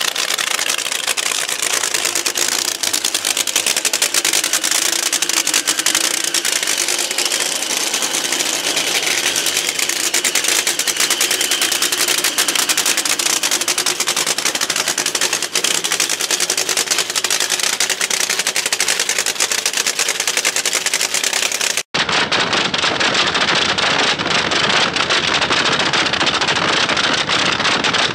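Supercharged nitromethane engine of a fuel altered drag car running up close, a loud, rapid, even clatter of exhaust pulses. There is an abrupt cut about three-quarters of the way through to more of the same engine sound.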